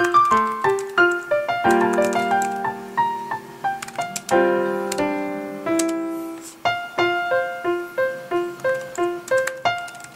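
Background piano music: a light melody of short, evenly paced notes over held chords.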